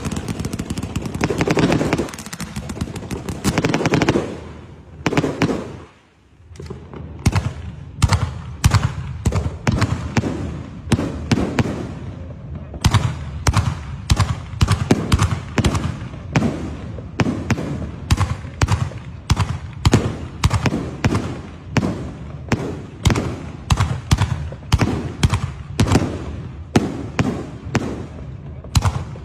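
Fireworks going off: a dense crackling barrage for the first few seconds, a brief lull about six seconds in, then a long string of sharp bangs at about two a second.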